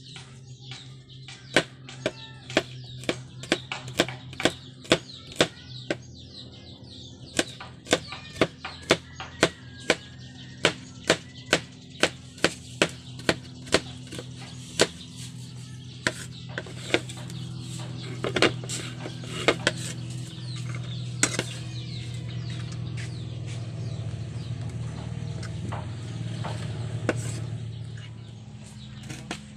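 Kitchen knife chopping garlic cloves on a wooden cutting board: sharp, regular chops about two a second, becoming slower and more scattered about halfway through.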